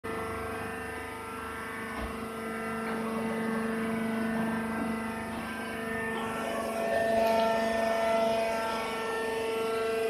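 Horizontal hydraulic baler for wood chips running: a steady machine drone with a few fixed pitches, and one low knock about two seconds in.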